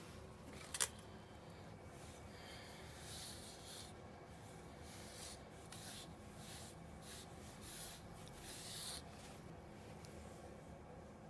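A single sharp click a little under a second in, then a run of soft, irregular scratchy rustles.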